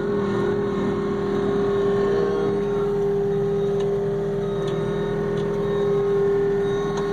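John Deere skid steer's diesel engine and hydraulics running with a steady hum, heard from inside the enclosed cab as the machine backs up onto a truck bed.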